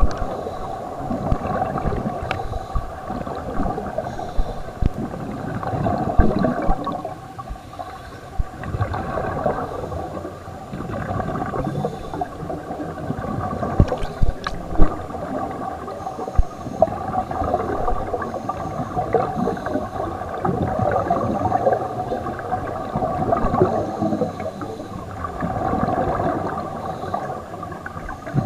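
Scuba regulator exhaust bubbles gurgling underwater, heard muffled through an action camera's waterproof housing, swelling and fading irregularly with the divers' breaths. A few sharp knocks stand out, a loud pair about halfway through.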